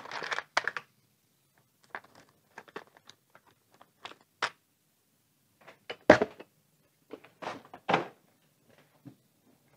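Small parts clicking in a clear plastic compartment organizer box as it is handled, with louder plastic knocks about 6 and 8 seconds in as the box and its lid are moved and set down.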